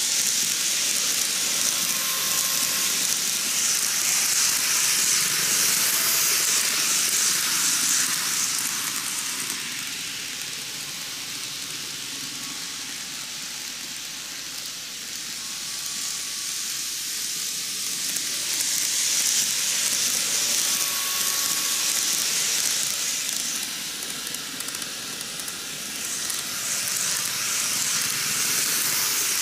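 N-gauge model trains, a Seibu 10000 series New Red Arrow and a Red Arrow Classic, running on canted double track: a steady, high-pitched rolling clatter of wheels on rail. It is loud as a train passes close, softer midway while the trains are farther around the curve, and loud again near the end as the second train comes by.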